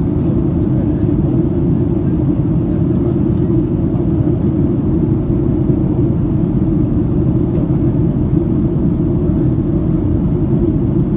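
Steady cabin noise inside a Boeing 737-800 in flight: an even, deep roar of its CFM56-7B engines and the airflow over the fuselage, with no change throughout.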